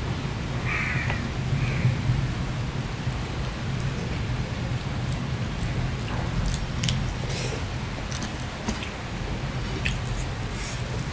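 Steady heavy rain, a dense continuous rush of noise. From about halfway in, a few small sharp clicks from fingers working rice on a plate and eating.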